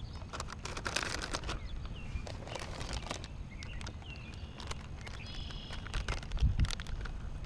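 Plastic soft-bait bag crinkling and rustling in the hands, with small clicks, as a fishing lure is taken out and rigged. A few dull low bumps come near the end, and faint bird chirps sound now and then.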